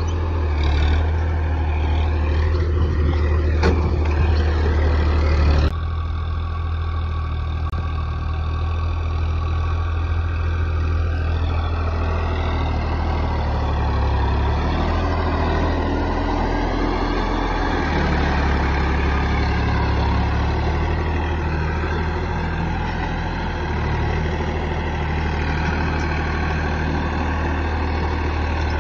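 Massey Ferguson 7250 tractor's diesel engine running steadily under load as it pulls a mouldboard plough through the soil. The sound drops abruptly in level about six seconds in.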